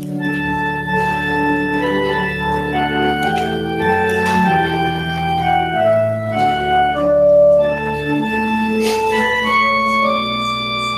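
Organ playing slow offertory music: a melody of sustained notes over held bass notes.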